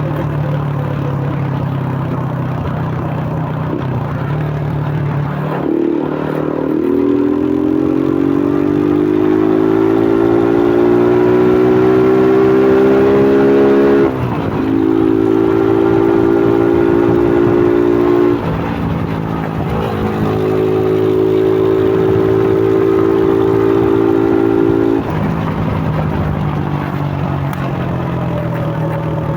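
Suzuki Fiero motorcycle's single-cylinder four-stroke engine, breathing through a K&N RC1060 pod air filter, pulling under throttle with its pitch climbing for several seconds. The pitch drops suddenly twice, at gear changes, and falls back to a lower steady note near the end as the throttle eases.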